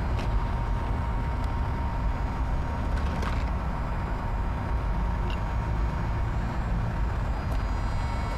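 Steady low rumble of outdoor city noise, with a faint high tone held steady throughout and a few faint clicks.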